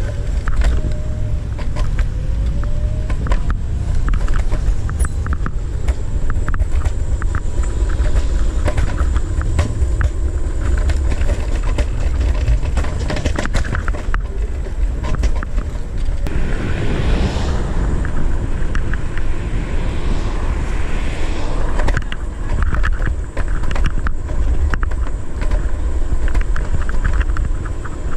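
Wind buffeting the microphone on a moving Segway Ninebot ES1 electric kick scooter, a constant low rumble, with many small clicks and rattles as the scooter rolls over pavement joints and bumps. A louder hiss swells for about five seconds past the middle.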